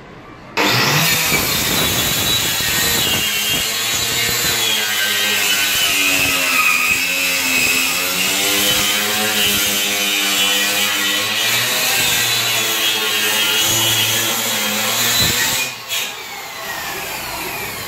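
Handheld electric circular saw switching on about half a second in and cutting through 22 mm plywood, its motor pitch wavering as it bogs under load. It switches off near the end and winds down.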